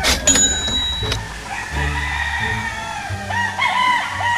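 Gamefowl roosters crowing, several calls overlapping, with a run of short crowing calls from about three seconds in. A sharp click comes right at the start.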